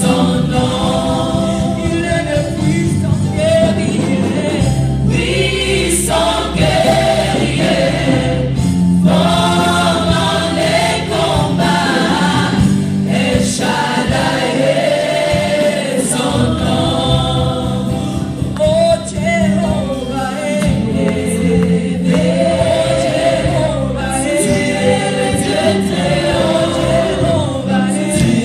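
Gospel choir of men's and women's voices singing through microphones, over a band with a steady low bass line.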